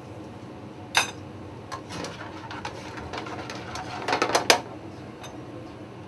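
Metal tongs clinking and scraping against a sauté pan as pieces of fish are turned in a cream sauce. There is a sharp click about a second in, light scattered taps, and a quick run of louder clinks around four seconds, over a steady low background hum.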